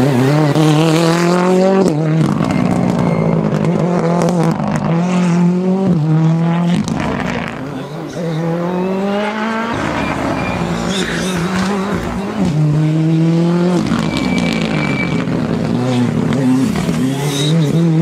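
Ford Fiesta R5 rally car's turbocharged 1.6-litre four-cylinder engine at full throttle, climbing in pitch and dropping back with each upshift, again and again. It eases off briefly about eight seconds in, then pulls hard through the gears again.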